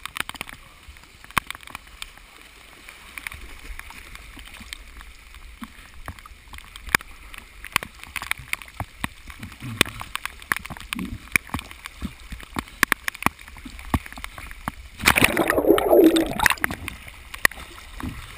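Floodwater sloshing and splashing around a waterproof action camera housing, with many sharp ticks of water and rain striking the housing. About fifteen seconds in comes a loud splash lasting under two seconds.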